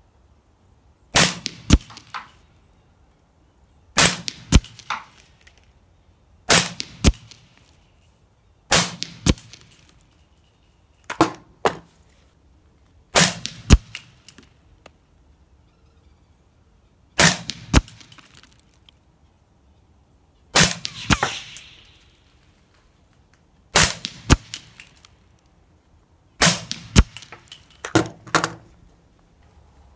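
Suppressed shots from a 300 Blackout AR pistol with a Sandman-L suppressor, firing 220-grain subsonic Remington UMC rounds, about one shot every two to three seconds. Each report comes with a second or third sharp crack within about a second.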